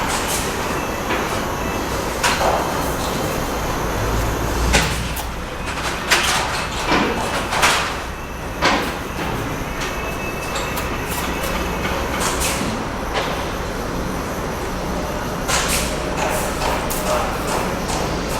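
Bricklaying work on cement bricks: a dozen or so sharp knocks and short scrapes of hand tools on brick and mortar, over a steady rumble of site noise.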